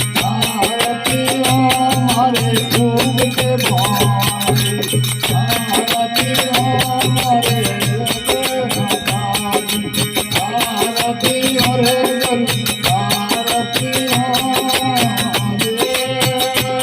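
Devotional folk aarti music: a wavering melody over a low pulsing drone, with fast, dense rattling percussion throughout.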